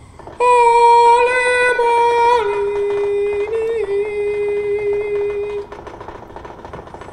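A voice singing long held notes without words: one note starts about half a second in, drops to a lower note about two seconds later and is held until near the end, when it gives way to quieter background sound.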